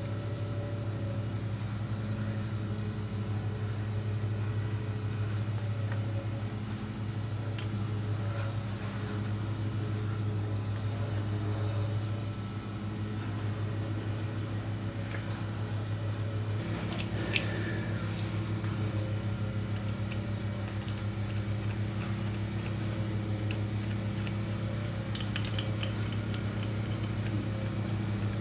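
A steady low mechanical hum, like a fan or motor running, with a few light metallic clicks and taps about two thirds of the way in and again near the end from engine parts and a hand tool being handled.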